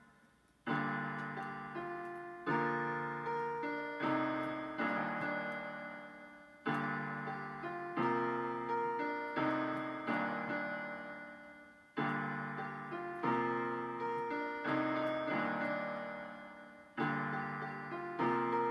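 Solo piano playing an instrumental passage of chords, each struck and left to ring and fade before the next, after a brief pause at the start.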